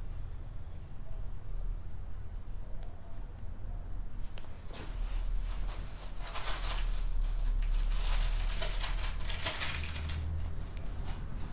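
Room tone with a steady low hum and a faint, steady high-pitched whine; about five seconds in, several seconds of rustling noise, as of papers or notes being handled.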